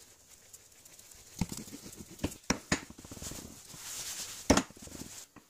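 Metal parts of an old screw bottle jack being handled on a wooden bench: several clicks and knocks as the bearing races come off the screw and are set down, a stretch of cloth rubbing, then one loud knock near the end.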